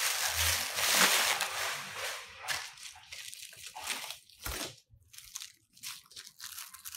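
Thin black plastic bag being handled and crumpled: a dense rustle for the first two seconds, then scattered crinkles and crackles.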